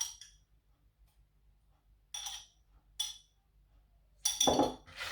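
Kitchenware clinking: three short ringing clinks, then a louder clatter near the end.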